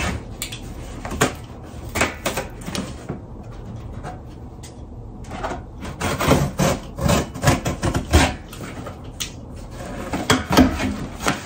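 Cardboard shipping box being opened by hand: packing tape picked at and peeled off the top flaps, with cardboard rubbing and scraping in irregular bursts, busiest in the middle and again near the end.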